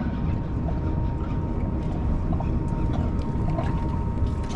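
Wind rumbling on the microphone, with a thin steady hum underneath and a few faint, irregular ticks.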